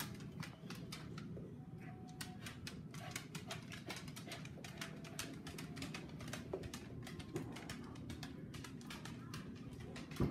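Dogs' claws clicking irregularly on a hardwood floor as they move about, several clicks a second, over a low steady hum.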